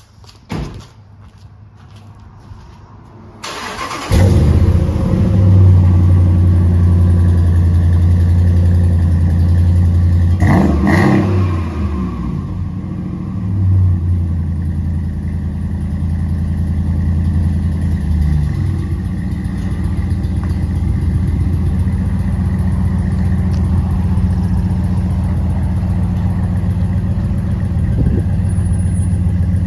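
A 5.7 L Hemi V8 cranks and catches about three and a half seconds in, then runs loud and steady through a freshly fitted dual exhaust, with a brief blip of revs about ten seconds in and settling to idle.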